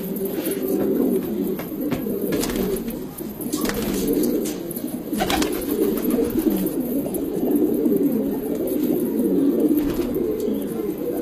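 A flock of domestic pigeons cooing continuously, many overlapping low coos, with a few brief clicks a few seconds in.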